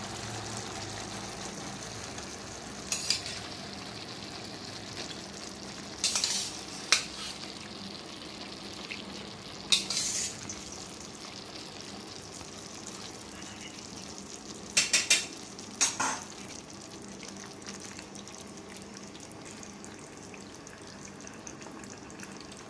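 Thick milk-and-butter pasta sauce simmering in a nonstick pan with a steady sizzle, while a metal slotted spoon clinks and scrapes against a steel pot several times as boiled macaroni is scooped into the pan.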